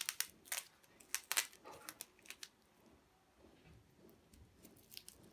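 Faint handling sounds of a drill and its packaging being unpacked: a quick series of sharp clicks and plastic crinkles over the first two seconds or so, then mostly quiet with a few more clicks near the end.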